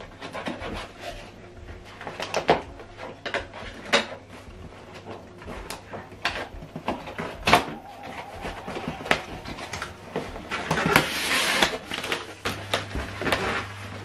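Cardboard box and packing materials being handled: scattered knocks, taps and rustles, with a longer burst of rustling about eleven seconds in.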